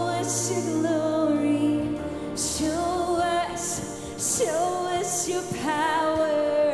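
Live worship song: a female lead singer with a full band, sung over sustained chords, with the low held note changing about two seconds in.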